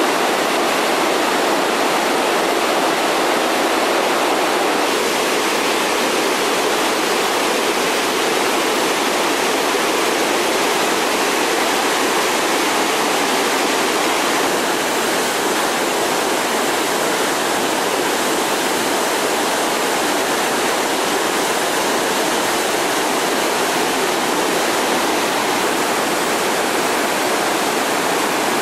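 Whitewater rapids pouring over rocks: a loud, steady, unbroken rush of churning water.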